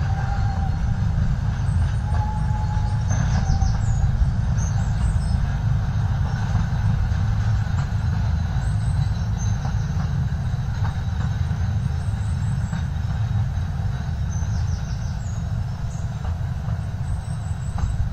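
Narrow-gauge Bord na Móna peat train hauling loaded peat wagons, a steady low rumble along the bog railway.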